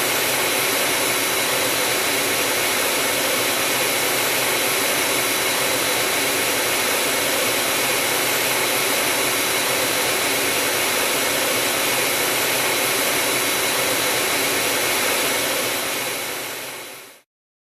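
Learjet jet engine running steadily after the second engine's start, heard from outside the aircraft: a steady rushing whine with several held high tones. It fades out near the end and cuts off.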